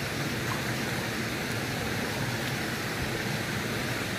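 Steady rushing of flowing stream water, an even hiss with no separate splashes.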